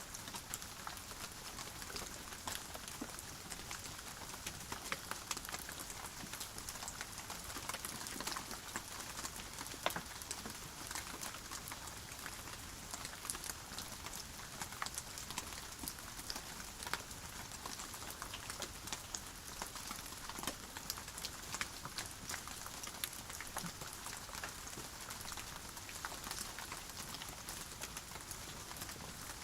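Steady rain falling, a dense even patter with many individual drops ticking sharply on a surface; no thunder is heard.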